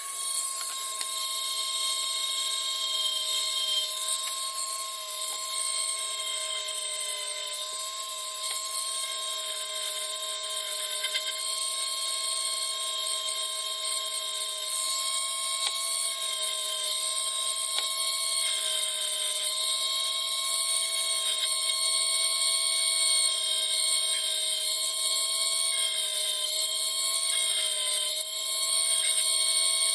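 Small handheld rotary tool with a fine drill bit running at high speed, drilling small holes in the edge of a plastic model hull: a steady, loud motor whine whose pitch wavers slightly now and then.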